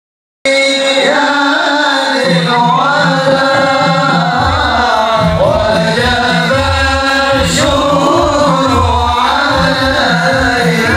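Several voices singing together in chorus over a steady drum beat, starting about half a second in.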